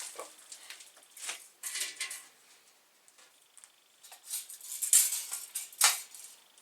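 Scattered light scrapes, clinks and knocks of metal parts and tools being handled on a workbench, with two louder clanks near the end.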